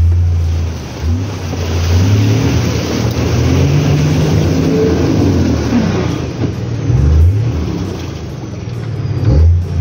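Nissan Safari 4WD engine revving as it pushes through a deep mud bog, its pitch rising and falling, easing off about a second in and again near the end.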